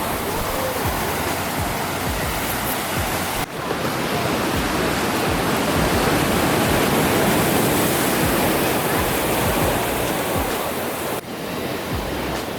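Ocean surf washing onto the beach, a steady rush that grows louder in the middle, broken off abruptly twice, about three and a half seconds in and near the end.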